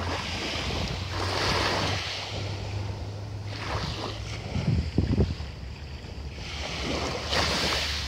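Small sea waves breaking and washing up a pebble beach, the hiss swelling and falling in surges every few seconds. Low wind buffeting on the microphone about halfway through.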